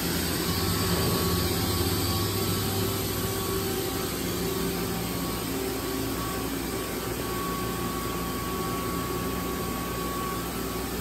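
Steady industrial machinery hum in a factory hall: a continuous hiss under a low drone with a few held tones, unchanging throughout.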